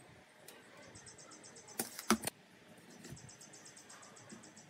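Two sharp clicks of hand measuring tools against the wooden workpiece about two seconds in, as a curved table leg is measured and marked out. A faint high-pitched pulsing repeats evenly underneath.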